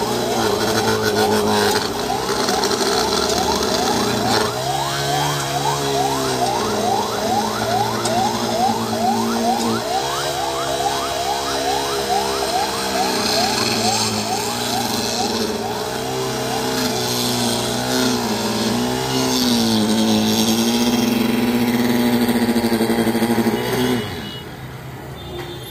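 Handheld petrol-engine rail tamping machine running hard as it packs ballast under a sleeper, its engine speed dipping and recovering several times with a fast rattling beat. Near the end the sound drops away sharply.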